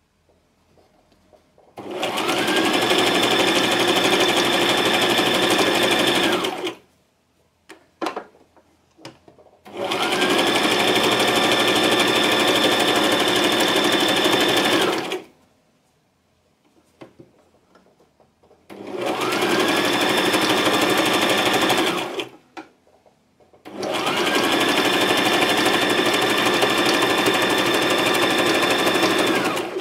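Electric domestic sewing machine stitching a very close zigzag, running in four spells of a few seconds each. Each spell starts with a rising whine as the motor speeds up, and faint clicks fall in the pauses between.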